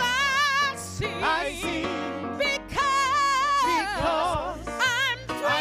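Solo gospel singing: long held notes with wide vibrato and sliding melismatic runs, in several phrases broken by short breaths.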